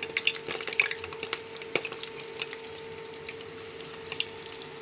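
Breadcrumb-coated potato balls deep-frying in hot oil in an aluminium kadhai: a steady sizzle with scattered pops and crackles, and a sharper pop just under two seconds in. A faint steady hum runs underneath.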